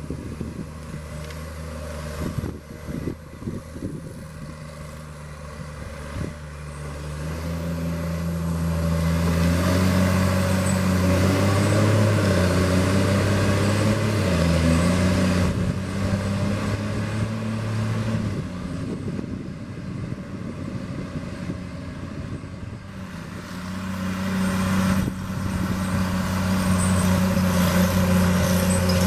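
Diesel engine of heavy logging machinery running under load. It revs up a few seconds in, runs loud, eases off in the middle and revs up again near the end.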